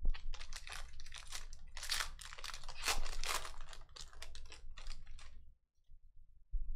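Foil wrapper of a Panini Donruss basketball hobby pack being torn open and crinkled for about five and a half seconds as the cards are pulled out, then a short soft knock near the end.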